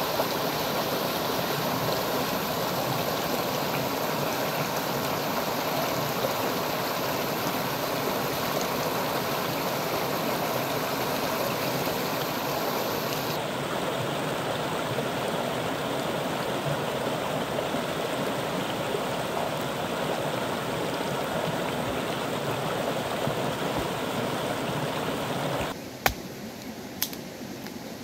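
Mountain stream rushing over rocks and small cascades, a steady even rush of water. Near the end it cuts off abruptly, leaving quieter surroundings with two sharp clicks.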